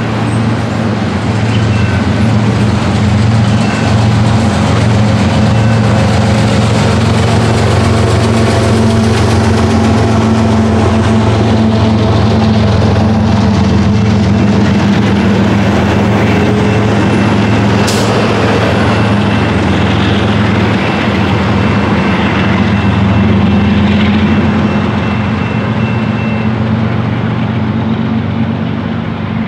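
Diesel locomotives of a heavy container freight train running under load: a steady, loud, low engine drone.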